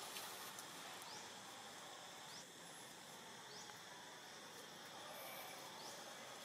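Faint outdoor background hiss with a few brief, high rising chirps scattered through it.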